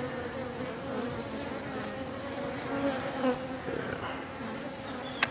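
Honey bee colony humming steadily, many bees buzzing together in an opened tree hollow, with a sharp click near the end.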